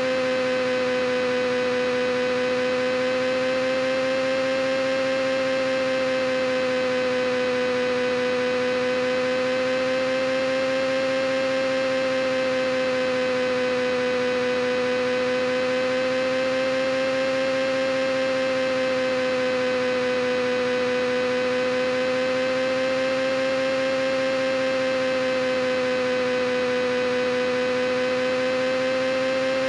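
A steady humming drone of one pitch with many overtones, its pitch wavering gently up and down every few seconds.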